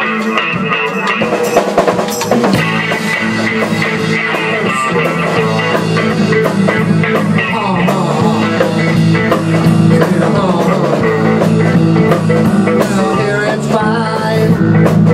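Rock band playing live: drum kit, electric bass and electric guitar together at a steady rock beat.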